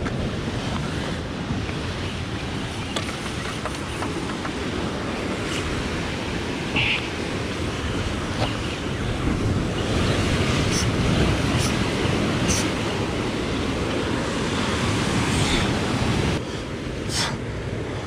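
Sea surf breaking against the rocks, with wind buffeting the microphone; the surf swells louder about ten seconds in. A few short clicks sound over it.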